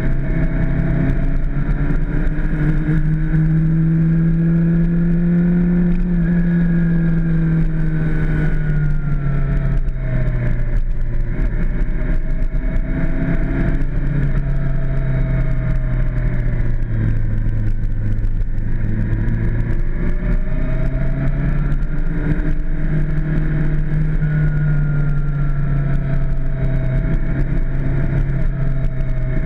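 Suzuki GSX-R600's inline-four engine running at steady cruising revs, heard from the bike itself, its pitch rising and falling gently over several seconds as the throttle changes through the bends. A low steady rumble runs underneath.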